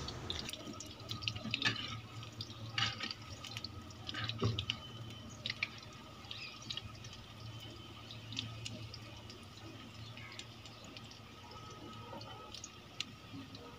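Pakora batter deep-frying in hot oil in a kadhai over a wood fire: a steady sizzle with scattered pops and crackles.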